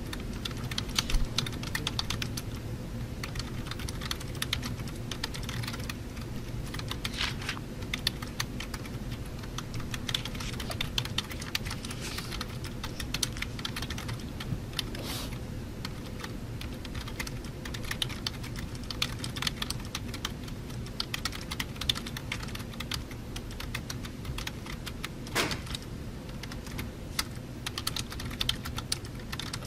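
Typing on a computer keyboard: quick, irregular keystrokes going on without a break, a few louder clacks among them, over a steady low hum.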